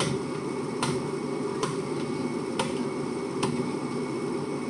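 Sharp clicks, five in all and about one a second, as a knife is worked through a large tuna's head behind the gill plate, over steady low background noise.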